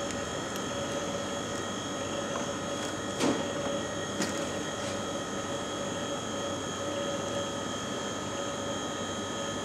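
Steady machine hum with several high whining tones held throughout, with a few soft knocks about three and four seconds in as raw chicken pieces are set down on a plastic chopping board.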